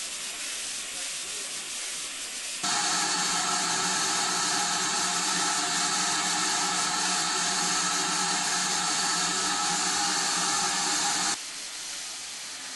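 Steam hissing steadily from a standing steam tank locomotive, GWR large prairie No. 4141. The hiss starts abruptly about two and a half seconds in and cuts off sharply near the end; before and after it there is only a faint hiss.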